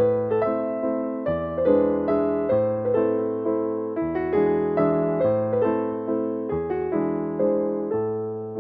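Background piano music: a gentle melody of struck notes over a low bass note that changes about every second and a half.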